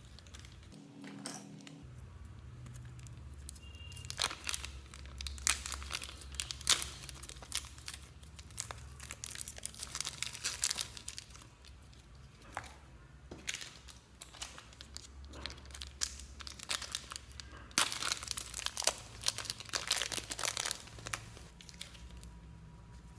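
Slime being mixed and squeezed by hand, giving irregular sticky crackles, pops and squelches in bursts.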